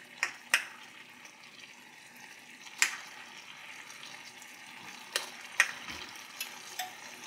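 Curried lamb simmering in a wok with a steady sizzling hiss, broken by several sharp clinks of a small metal scoop against the pan and measuring cup as the cooking liquid is scooped out, the loudest about three seconds in and again past five seconds.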